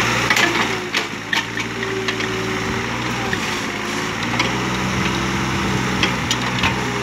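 Kubota KH-027 mini excavator's diesel engine running steadily, its note shifting a couple of times as the arm and bucket work. Scattered sharp clanks and knocks come over it as the steel bucket scrapes and spreads soil.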